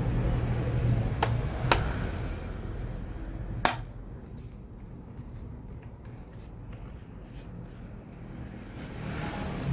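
Plastic clips of a laptop's bottom cover snapping into place as the panel is pressed shut: three sharp clicks in the first four seconds, then fainter small ticks, over a low steady hum.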